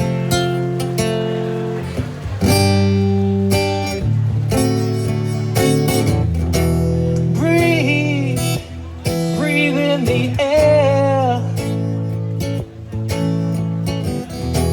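Acoustic guitar playing an instrumental passage, with chords struck every second or two. Through the middle, a wavering, sliding melody line rises over the chords.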